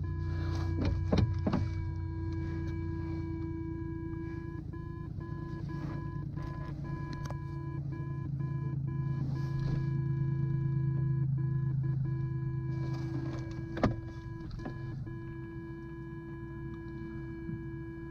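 Tow plane's piston engine and propeller running as it taxis, heard from inside the glider's closed cockpit; the drone grows louder toward the middle and then eases. A steady high electronic whine runs underneath, with a few sharp clicks, the loudest about 14 seconds in.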